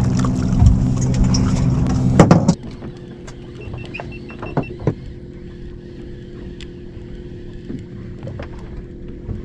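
Outboard boat motor idling with a steady low hum. About two and a half seconds in it cuts to a quieter steady hum with a few sharp clicks as a baitcasting reel is cranked.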